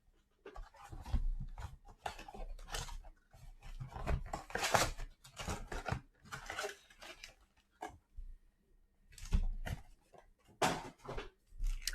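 A 2021 Bowman Baseball Mega Box being torn open and its card packs handled: irregular tearing and rustling of cardboard and wrapping, in short stop-start bouts with brief pauses.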